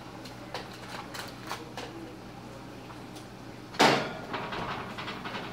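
A few light clicks and rustles, then a sudden loud metallic clank about four seconds in, followed by a short rattle, as the wall oven's door and rack are pushed shut.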